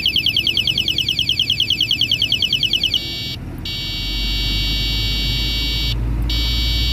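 Electronic horn built into a bicycle headlight sounding: a rapidly pulsing high warble, about ten beeps a second. About three seconds in it switches to a steady high beep, held in long blasts with two short breaks.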